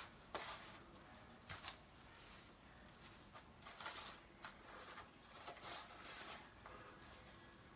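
Faint, soft patting and rustling of a whiting fillet being pressed and turned in a cornmeal-and-flour dredge, a few light pats scattered through; otherwise near silence.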